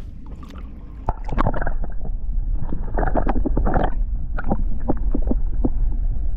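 Water gurgling and sloshing with a heavy low rumble and scattered knocks, as a caught bluegill is let go back into the water.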